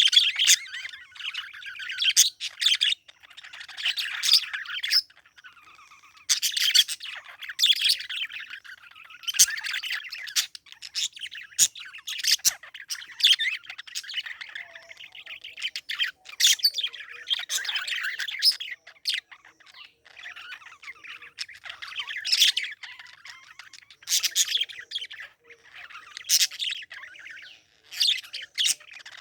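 Parakeet chirping and chattering in bursts of a second or two, with short pauses between them.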